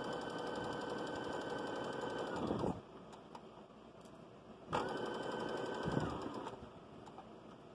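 Electric sewing machine top-stitching a fabric edge: a steady motor whine with rapid needle strokes for the first two to three seconds. After a short pause comes a second, shorter run near the middle, and each run winds down as it stops.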